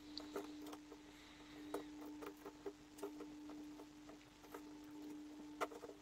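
Faint scattered clicks and crackles of plasticine being peeled and torn away from a set plaster of Paris cast by hand, a few louder snaps just before the end, over a steady faint hum.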